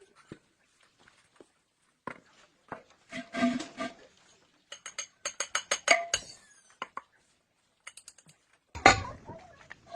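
Irregular metal clinks and knocks, some of them ringing briefly, with a heavier clank near the end.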